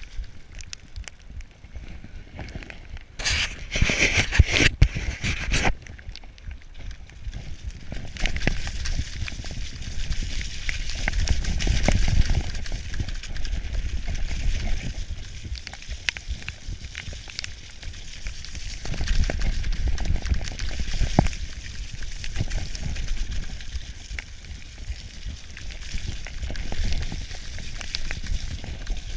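Specialized Demo 7 downhill mountain bike descending a wet, muddy trail at speed: tyres squelching and spraying through mud and the bike rattling over bumps, with wind rumble on the mic. A louder, harsher stretch comes a few seconds in.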